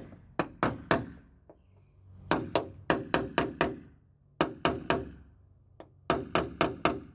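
Small hammer tapping on metal in four quick runs of four to seven light strikes each, about five strikes a second, with short pauses between the runs.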